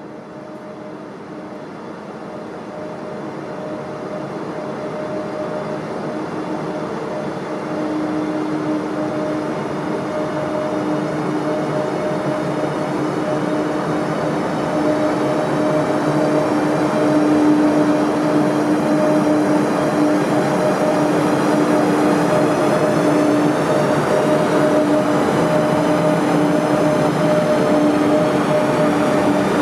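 ÖBB class 1144 electric locomotive running in along the station track at the head of a double-headed train, growing steadily louder as it draws close. Its noise carries a steady two-note electric hum.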